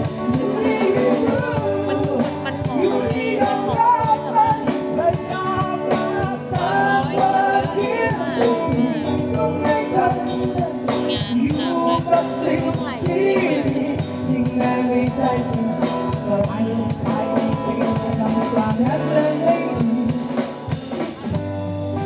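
Live band playing a song on electric guitars and a drum kit, with a melodic lead line weaving over the steady beat.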